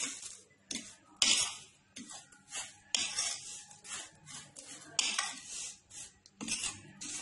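Metal spoon scraping around a large bowl as it stirs a dry ground mix of coconut, black sesame and almonds, in a string of short, irregular scrapes.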